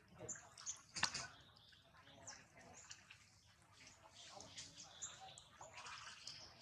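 Macaques splashing in water, with scattered short high squeaks and chirps and a sharp click about a second in.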